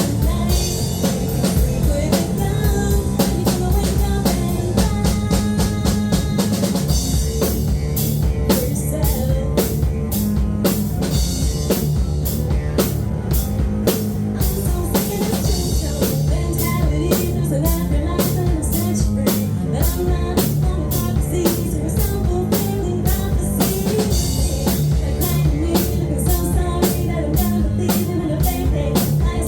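Rock music with a full drum kit playing a steady, driving beat of bass drum and snare hits over bass and guitar, with no vocals.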